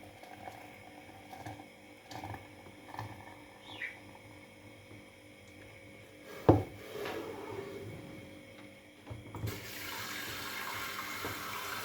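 A few light clinks and one sharp knock about halfway through. Near the end a kitchen tap is turned on and water runs steadily into the sink.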